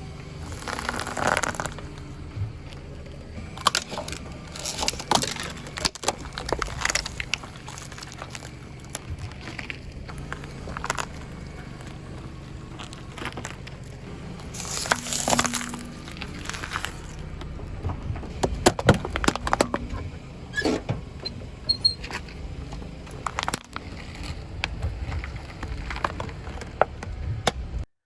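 A car tyre rolling slowly over objects and crushing them, giving irregular cracks, crunches and pops, with a few longer crunching bursts. The car's engine runs low and steady underneath.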